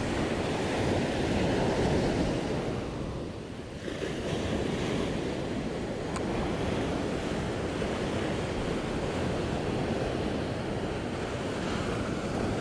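Ocean surf breaking and washing up the sand in a steady rush, with wind buffeting the microphone. The rush dips briefly about three and a half seconds in before the next wave comes in.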